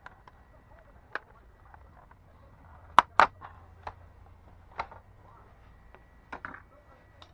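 Scattered sharp clicks and taps of a screwdriver and small screws against a laptop's plastic bottom case while its screws are taken out, the loudest a quick double tap about three seconds in.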